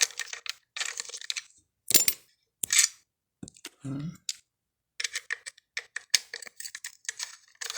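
Metal starter-motor parts and hand tools clicking, clinking and scraping as the solenoid is taken off the starter. Scattered short knocks and rasps are followed by a quick run of small clicks from about five seconds in.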